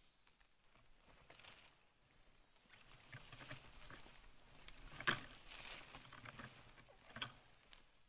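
Leaves and twigs rustling and crackling in irregular bursts, busiest in the middle, with a sharp snap about five seconds in.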